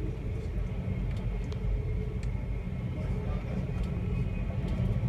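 A heavy vehicle's steady low rumble, with a few faint clicks.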